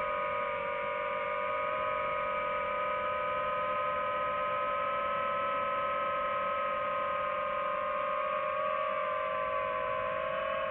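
DJI FPV drone's motors and propellers whining steadily in flight, with several held tones. The pitch shifts slightly near the end as the throttle changes.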